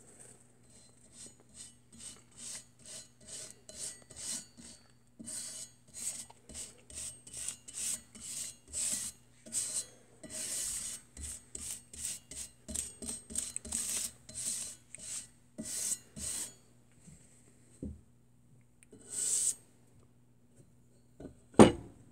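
Flat scraper dragged in quick repeated strokes, about two or three a second, along the painted handle of a Walworth Stillson pipe wrench, stripping off the old paint. After a pause there is one more stroke, then a sharp knock near the end.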